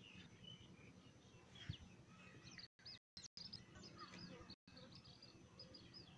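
Near silence with faint bird chirps in the background, a run of short, high, repeated chirps in the second half. The sound cuts out completely for brief moments a few times.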